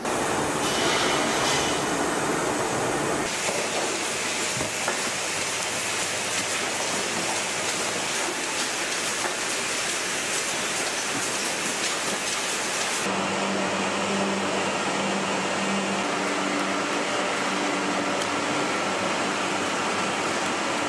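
Steady machinery noise from a factory production line with conveyors. It changes character abruptly about three seconds in and again about thirteen seconds in, with a steady low hum in the later part.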